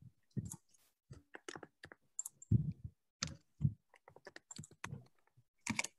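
Typing on a computer keyboard: a run of irregular keystroke clicks, with a few heavier knocks about two and a half and three and a half seconds in.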